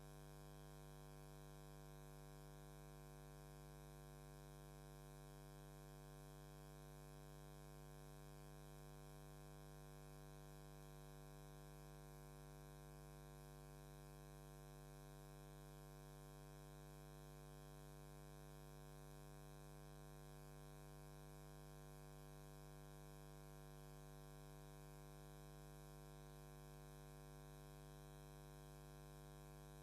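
Faint, perfectly steady hum made of a low tone and a stack of unchanging overtones, with no taps or strikes.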